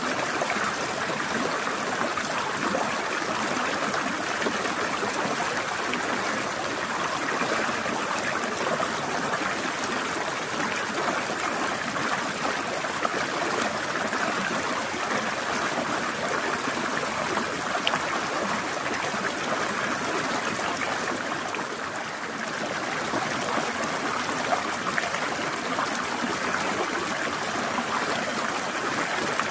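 Forest stream flowing and trickling over rocks, a steady rush of water that eases slightly for a moment about three quarters of the way through.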